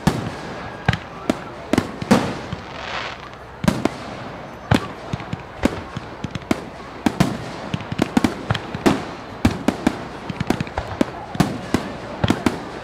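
A fireworks display going off: many sharp bangs at irregular intervals, some coming in quick clusters, from shells bursting.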